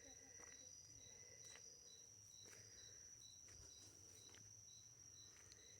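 Faint night insects: a steady high trill with a cricket chirping about twice a second over it.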